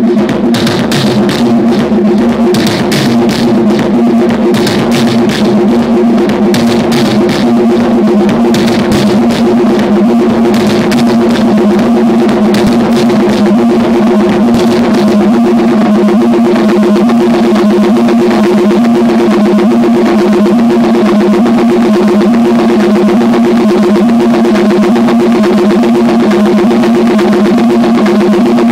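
Loud live electronic music played on a drum machine and mixer setup: a distorted, pulsing low drone with rapid clicking hits that thin out about halfway through.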